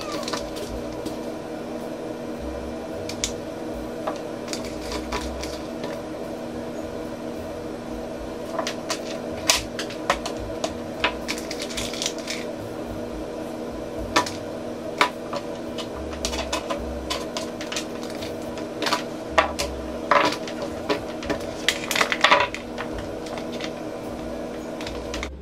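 Kitchen utensils and dishes clinking and tapping in short, sharp clicks and knocks, which come more often after a few seconds and are loudest near the end, over a steady low hum.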